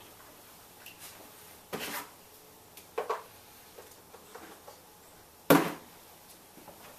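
Knocks and clatters of kitchen items being handled, among them a plastic food container, with a few lighter knocks and one much louder sharp knock about five and a half seconds in.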